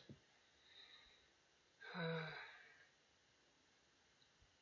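Near silence, with a single click right at the start and one breathy sigh from a man about two seconds in.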